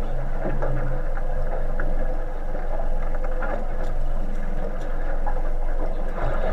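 A boat's engine running steadily with a low hum, under a constant rush of wind and sea noise.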